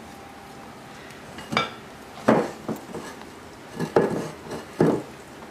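Irregular metal knocks and clanks from a KitchenAid stand mixer's stainless steel bowl and dough hook as sticky marshmallow fondant is pulled off the hook and scooped out of the bowl. They begin about a second and a half in, about seven in all.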